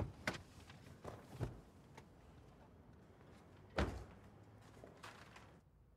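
Car door handles and latches clicking as the occupants get out of the car, then a car door shutting with a heavy thud nearly four seconds in.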